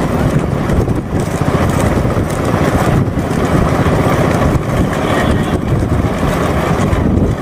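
Steady rush of wind on the microphone with the engine and road noise of a moving vehicle, loud and continuous.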